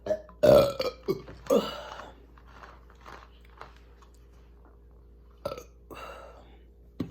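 A woman burping loudly after drinking carbonated soda (cherry Sprite): two big belches in the first two seconds, the first the louder, then a few softer ones near the end.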